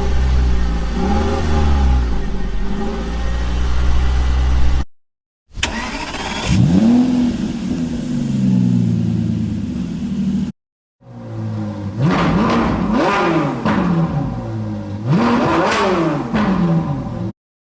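Peugeot 508 car engine revving, its pitch rising and falling again and again. The sound comes in three separate clips, each cut off abruptly by a short silence, about five seconds and ten seconds in.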